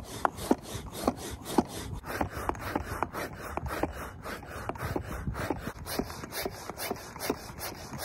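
Stand-up hand pump inflating an inflatable paddle board: a fast, even run of rasping, hissing strokes. The owner thinks the pump is broken, as the board won't inflate all the way.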